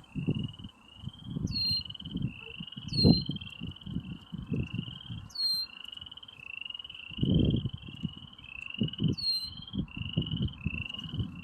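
A chorus of boreal chorus frogs gives short rising trills over and over, about one and a half a second. A bird's brief high call comes a few times over it. Wind gusts rumble on the microphone, at times louder than the frogs.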